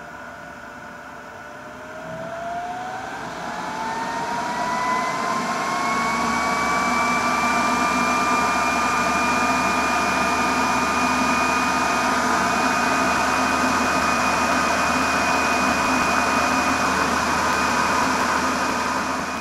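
Leister Hotwind System hot-air blower's fan speeding up as its airflow knob is turned up. A whine rises in pitch and a rush of air grows louder over a few seconds, then both run steady at the higher fan speed.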